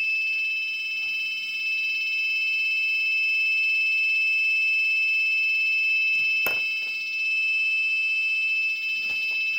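Small Arduino buzzer in a pedestrian crossing signal, sounding one steady, unbroken high-pitched tone: the cue that pedestrians may cross.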